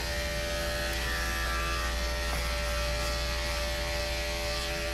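Andis electric dog-grooming clipper running with a steady buzz as it is worked through the hair on a dog's head.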